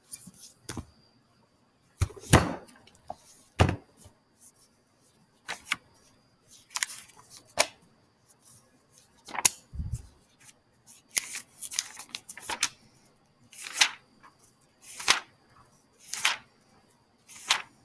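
Pages of a textbook being turned one after another in short, irregular swishes, with handling knocks and a low thump about ten seconds in.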